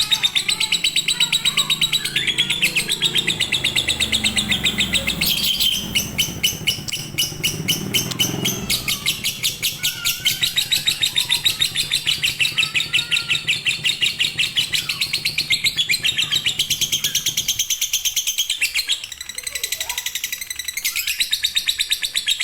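Lovebird singing a long, unbroken run of rapid, high-pitched chirps in the fighter/konslet style. It dips briefly a little before the end, then carries on.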